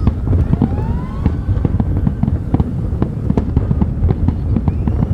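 Fireworks display: a rapid, irregular string of bangs and crackles over a continuous low rumble, with a couple of rising whistles.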